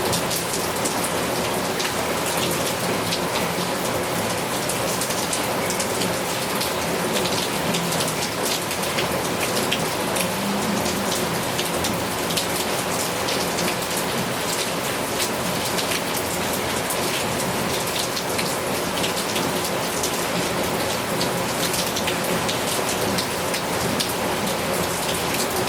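Heavy rain falling steadily, a dense, even hiss with many sharp individual drop hits.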